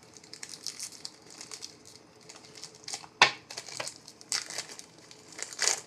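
Crinkling of a trading-card pack wrapper being handled and torn open, in irregular crackles with a sharp click about three seconds in and a louder crinkle near the end.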